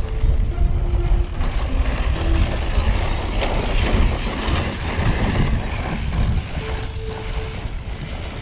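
Arrma Senton 4x2 Boost RC short course truck driving on pavement, its brushed electric motor whining up and down with the throttle over the rush of tyres, loudest around the middle.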